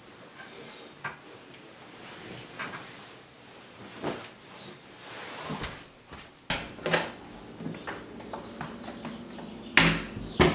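Bedding rustling and scattered knocks and clicks of a person getting out of bed and moving about, with a louder knock near the end.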